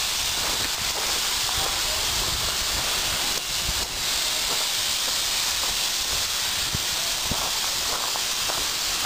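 Steady hiss of steam from a steam locomotive pulling its passenger cars away, with scattered faint clicks.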